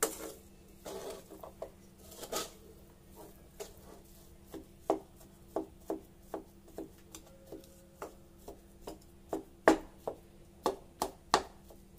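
A cooking spoon knocking and scraping in a pan of spiced potato samosa stuffing: a series of irregular sharp knocks, several louder ones near the end, over a faint steady hum.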